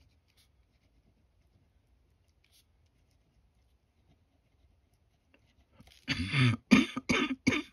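Near silence with faint pen scratching on paper, then about six seconds in a woman's short fit of coughing, four coughs in quick succession, from a woman with an upper respiratory infection and laryngitis.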